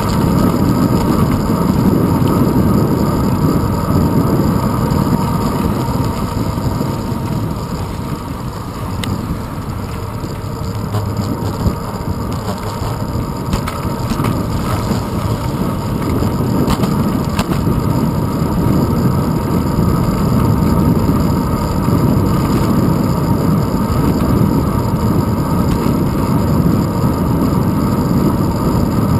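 Steady low wind rumble and road vibration on a handlebar-mounted GoPro as the bicycle rolls along the street, easing briefly about eight to ten seconds in, with a few faint clicks.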